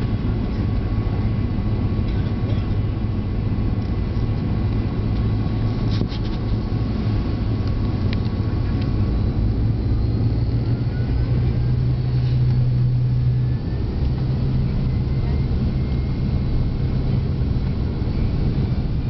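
Cabin sound of a DC-10-30 airliner taxiing, its General Electric CF6-50 turbofans running at low power as a steady low drone. Faint rising whines come in during the second half.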